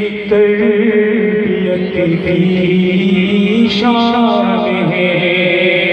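A man's voice chanting a manqabat, an Urdu devotional poem, into a microphone. He holds long, drawn-out notes that waver and turn melodically, with no clear word breaks.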